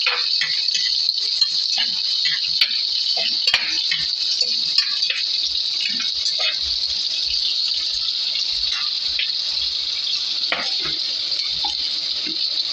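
Sliced shallots and garlic sizzling in hot oil in a pot, a steady high hiss, with scattered clicks and knocks of a spatula stirring against the pot.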